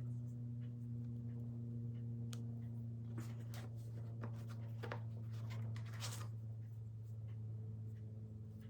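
Steady low electrical hum, with a few light clicks and rustles of handling scattered through the middle.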